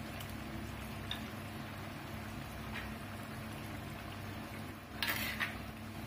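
Fish curry simmering in an earthen chatti, a steady low bubbling, with a few soft taps as pieces of mackerel are set into the gravy. A brief louder clatter about five seconds in as a spoon goes into the pot.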